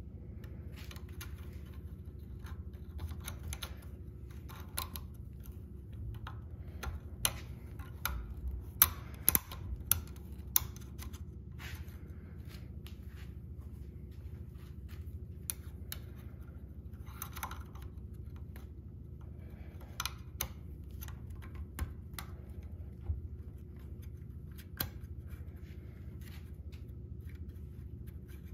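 Scattered light metallic clicks and clinks from hand tools and engine parts being handled, a few sharper knocks among them, over a steady low hum.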